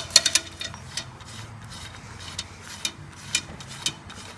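Steel nut spun by hand down a length of threaded rod, rattling on the threads: a quick run of clicks at first, then a single tick about every half second.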